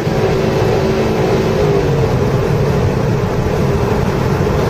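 2010 Subaru WRX's turbocharged flat-four engine heard from inside the cabin on track, its note easing down slightly as the car slows into a corner, over a steady rush of road and wind noise.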